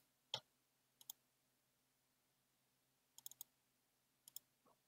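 Faint computer mouse clicks, a few single and double clicks spaced across near silence, the sharpest about a third of a second in.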